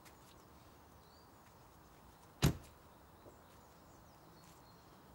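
An SUV's front door slammed shut once, a single sharp bang about halfway through, over a quiet outdoor background.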